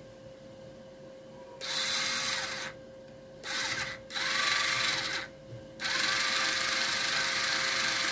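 A small handheld power tool's motor running in four bursts, the last and longest from about six seconds in, its pitch dipping near the end, over a faint steady hum.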